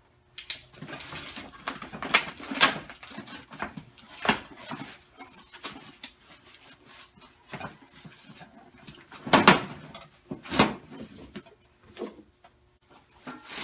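Irregular clattering and knocking as the metal parts of a flat-packed welding cart are unpacked and handled, with two louder knocks a little past the middle.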